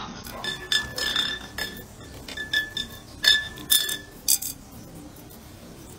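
A crow knocking a thin stick against a clear glass tube as it tries to fish out a nut, giving a series of irregular glassy clinks with brief ringing over the first four and a half seconds.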